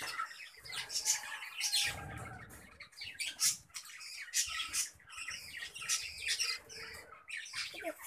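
Budgerigars squawking and chattering: a dense run of short, harsh, high-pitched calls, with a brief low rumble about two seconds in.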